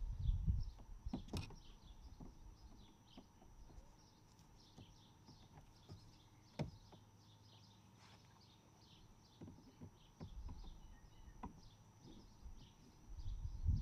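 A few sharp clicks and knocks as plastic push-pin clips are worked loose from the underside of a car's front bumper, with faint birds chirping throughout.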